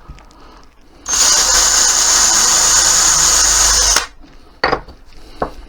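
Electric drill running for about three seconds, boring a small starter hole into a wooden dowel peg, stopping abruptly, followed by a couple of sharp knocks.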